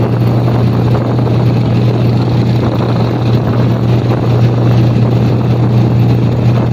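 Motorboat engine running at a steady low drone, heard from aboard, over a constant rushing noise of water and wind.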